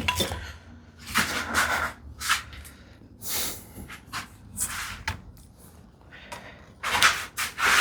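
Irregular wooden knocks and short scrapes of a workpiece and hand tools being handled and set down on a woodworking bench, several separate bursts with the loudest near the end.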